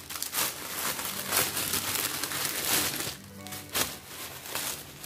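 Clear plastic packaging crinkling and rustling as it is handled, heaviest in the first three seconds with one more crackle near the end, over steady background music.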